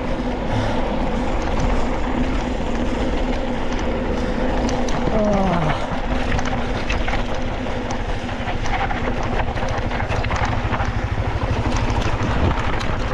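Downhill mountain bike descending a rough dirt trail: steady wind rush on the microphone with the rapid clatter and knocks of the bike over the ground. A brief falling vocal call about five seconds in.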